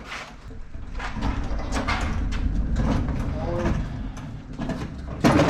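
Loaded engine hoist, carrying the engine and transmission, rolled on its caster wheels: a low rumble from about a second in that fades after about four seconds. A brief voice is heard in the middle.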